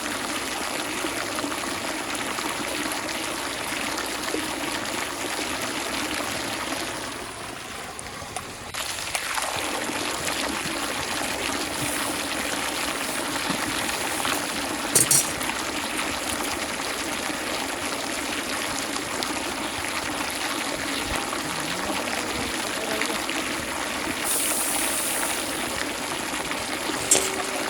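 Running water flowing steadily, with a brief quieter spell about seven to nine seconds in and a few short knocks later on.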